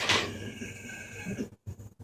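A dog's laboured, noisy breath with a wheezing whistle in it, lasting about a second and a half. This is the stridor of laryngeal paralysis during respiratory distress, like breathing through a cocktail straw.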